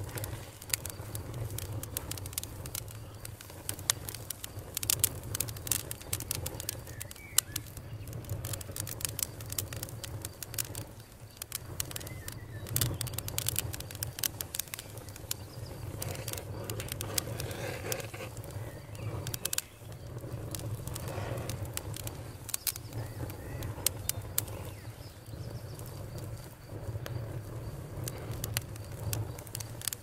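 Wood campfire crackling, with frequent sharp irregular pops over a low steady rumble. Birds call in the background, with faint crickets.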